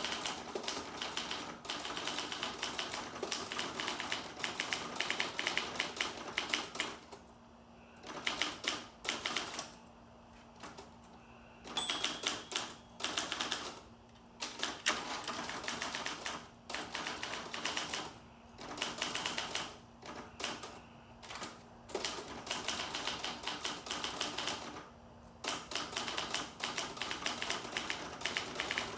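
Olympia SG1 manual typewriter being typed on fast: rapid runs of key and typebar strikes broken by short pauses, with a brief high ring about twelve seconds in.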